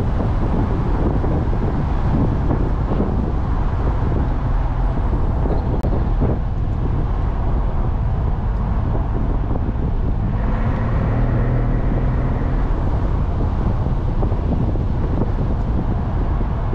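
Mercedes-Benz SL65 AMG's twin-turbo 6.0 V12 running steadily while the car is driven, with a constant rumble of road and wind noise; about ten seconds in the engine note swells a little for a couple of seconds.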